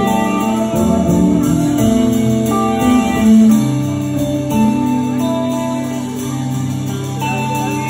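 Live band music with no singing: an electric guitar playing sustained chords over long, low held bass notes.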